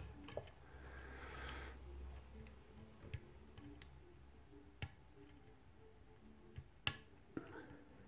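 Faint, scattered metallic clicks of a homemade lock pick working the pins of a brass mortise lock cylinder held under tension: about six separate clicks, the loudest near the end.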